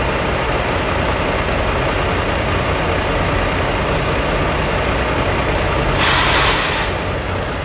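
Idling diesel semi-truck engine, a steady low rumble. About six seconds in, a short, loud hiss of air vents from a truck's air brake system.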